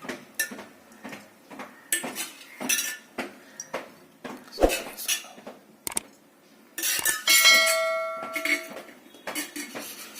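Metal cookware and utensils clattering and clinking in a series of sharp knocks. About seven seconds in, a metal pan or vessel is struck and rings for about a second and a half.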